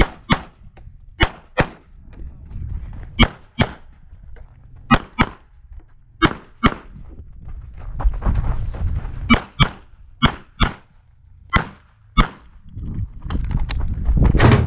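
9mm CZ 75 SP-01 pistol with a red-dot optic fired in quick double-taps, about eight pairs of shots a couple of seconds apart. Each pair is two shots on one target, with a few fainter shots near the end.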